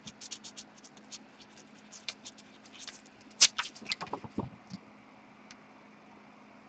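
A quick, irregular run of light clicks and taps, busiest and loudest about three and a half to four and a half seconds in, then only a faint steady hum.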